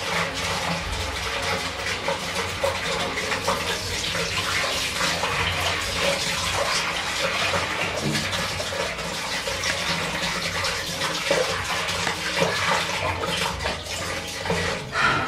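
Water running steadily from a bathroom tap into a sink, with small irregular splashes.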